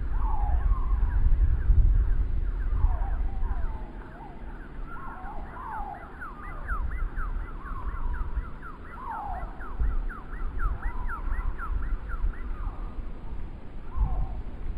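Strong wind gusting across the microphone, loudest in the first few seconds. Through the middle, a rapid series of short gliding tones, about four a second, over further scattered wavering tones.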